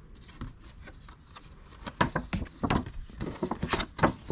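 Paper rustling and crinkling as old printed brochures are handled. Quiet for the first two seconds, then a quick run of crisp crackles.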